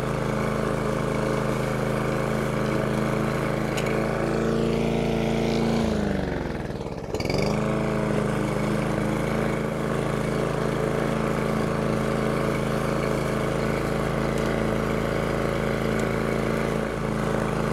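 The small single-cylinder engine of a Masport 20-inch self-propelled push mower runs steadily while cutting grass. About six seconds in, its speed drops sharply, nearly to a stall, then picks back up to a steady run about a second and a half later.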